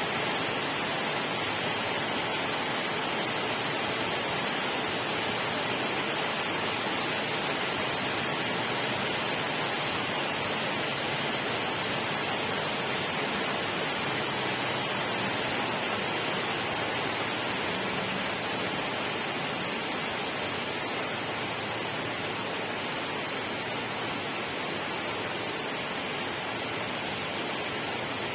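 Steady, even rushing of water, with no distinct drops, splashes or other events.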